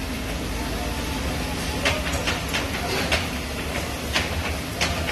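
A spatula stirring and scraping a thick milk-based masala in a metal pan, with several sharp clicks of the spatula against the pan from about two seconds in, over a steady low roar and hiss of the kitchen.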